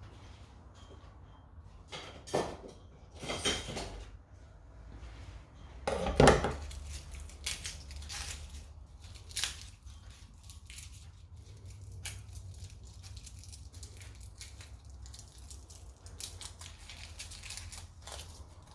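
Kitchen handling sounds: scattered clicks, knocks and rustling, with one louder knock about six seconds in, over a low steady hum.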